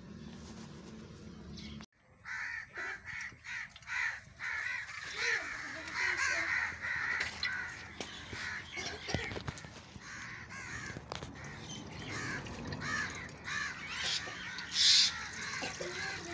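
Many birds calling outdoors, with short repeated calls that overlap. They start about two seconds in, after a low steady hum, and are loudest near the end.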